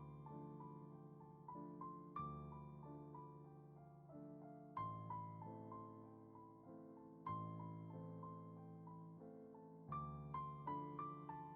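Quiet, slow piano background music, with a new chord struck about every two and a half seconds under a simple melody.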